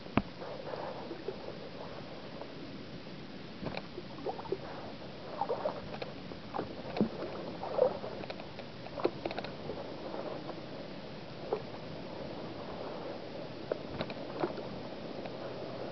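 Kayak paddling on calm water: irregular small splashes and drips from the paddle blades, with a few sharp knocks.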